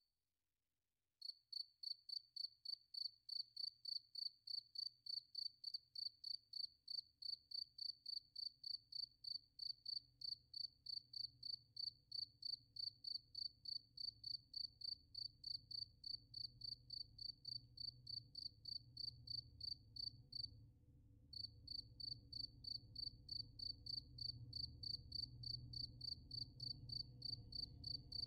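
Insect chirping in an even rhythm of about three short high-pitched chirps a second, pausing briefly near the start and again about two-thirds of the way through. A low hum grows beneath it in the second half.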